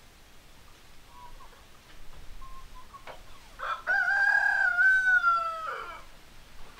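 Rooster crowing once: a single long call of about two and a half seconds, starting some three and a half seconds in and falling away at the end, after a few faint short chicken calls.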